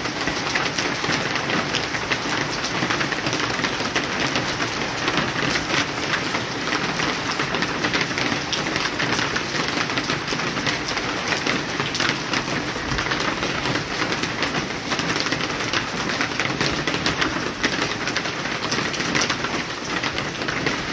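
Steady heavy rain falling on a paved street and sidewalk, a dense even hiss with many close individual drop hits.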